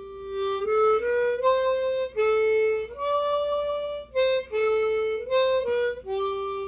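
Large old harmonica (mouth organ) with extra low notes playing a slow melody: a held note, then a climbing run of single notes that comes back down and settles on the same held note near the end.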